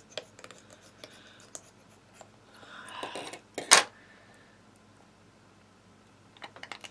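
Scissors snipping at a green plastic Poopsie Slime Surprise package, with plastic crackling that builds to one sharp, loud snap about four seconds in. A quick run of small plastic clicks follows near the end as the piece is handled.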